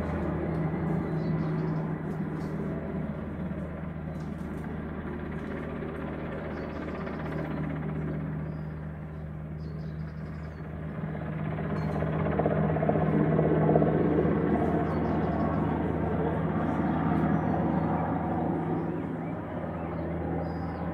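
Firefighting helicopter flying past with a water bucket slung beneath it, its rotors making a steady low drone. The drone fades slightly about halfway through, then grows louder a few seconds later.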